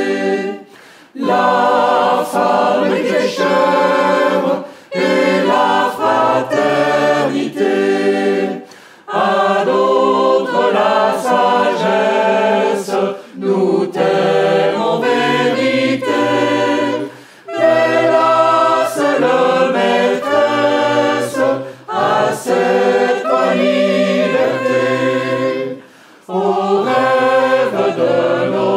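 A small group of men and women singing a French student song together, phrase by phrase with short breaks between the lines.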